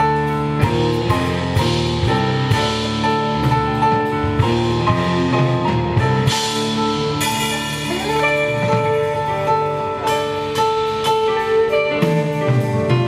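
Small live band playing an instrumental passage: a Yamaha S90 ES stage keyboard with electric bass and a drum kit.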